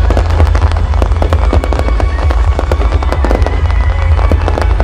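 Aerial fireworks display: a dense, continuous run of sharp pops and crackles from bursting shells over a heavy low rumble.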